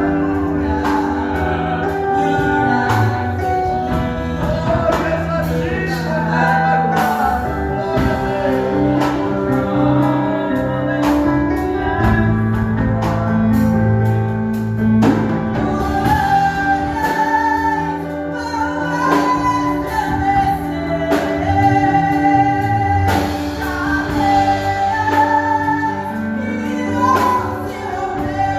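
Gospel worship song sung in Portuguese, voices carrying the melody over instrumental backing with a steady beat.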